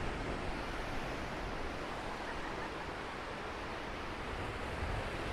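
Steady, even wash of sea surf breaking on the rocks below, mixed with wind.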